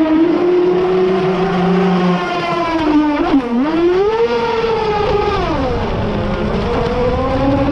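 RC boat motor whining at speed, its pitch dipping twice as the throttle eases and then climbing back, over water rushing past the hull.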